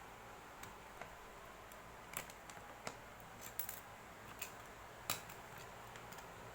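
Irregular small sharp clicks and taps, about a dozen, over a steady faint hiss, the loudest about five seconds in: small parts and tools being handled during a hot glue gun repair.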